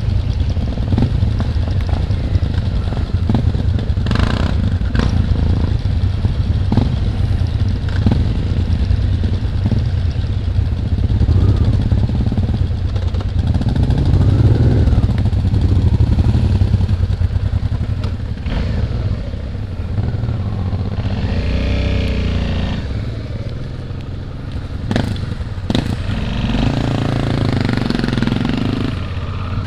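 Suzuki V-Strom's V-twin engine running at low revs, along with other motorcycles' engines, with a few sharp knocks.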